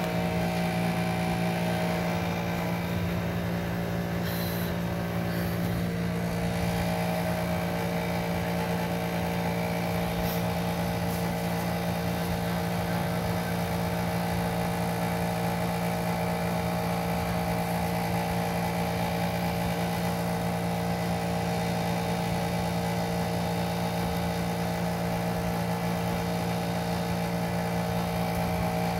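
A steady motor hum, constant in pitch and level, with a low drone and a few higher steady tones.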